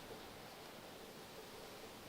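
Near silence: a faint, steady hiss of background noise with no distinct sound.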